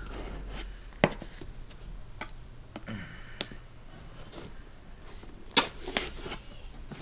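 A knife cutting open a cardboard shipping box, with scratching and handling of the cardboard and a few sharp knocks. The loudest knock comes a little over halfway through and is followed by a short flurry of scrapes.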